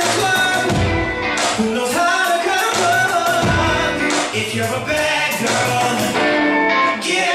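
Salsa music with a singing voice over the band's instruments and percussion.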